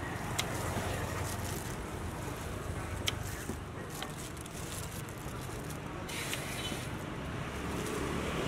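Busy street background: a steady low rumble of traffic with wind on the microphone, broken by three sharp clicks.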